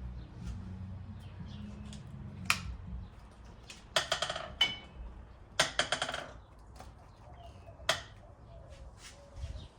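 Metal tools and parts being handled: sharp clinks and rattles with a metallic ring, in several short clusters, the loudest near the middle. A low hum fades out about three seconds in, and faint bird chirps come and go.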